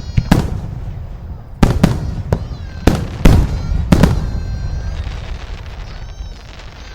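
Fireworks going off: a rapid run of sharp bangs, about nine in the first four seconds, the loudest a little after three seconds, then a fading rumble.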